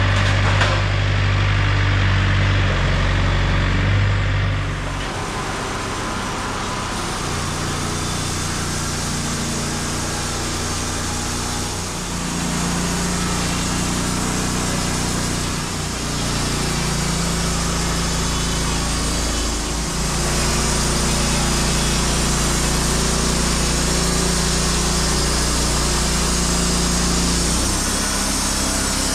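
An engine running steadily. Its sound drops about five seconds in, then its pitch shifts several more times, as under changing load.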